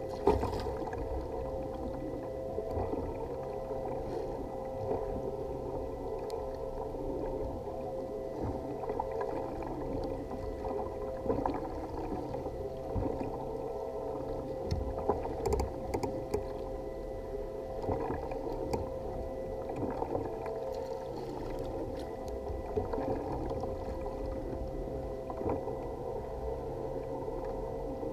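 Muffled water sloshing against a kayak hull, with a steady low hum and a few light knocks and clicks now and then.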